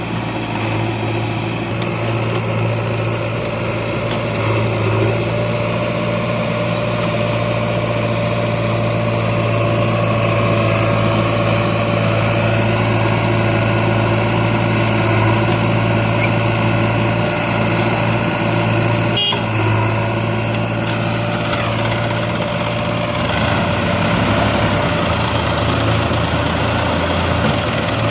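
Heavy diesel engine of a backhoe loader or farm tractor running steadily at low speed, with a sharp click about two-thirds of the way through and its note dropping lower for a few seconds near the end.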